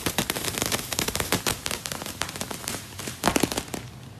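Plastic wrapping on a pack of mineral wool insulation crinkling and crackling in quick, irregular clicks, louder for a moment a little past three seconds.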